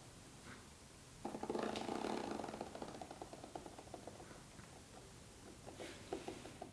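Typing on a mechanical keyboard: a fast clatter of keystrokes starts about a second in, then thins to scattered single key presses.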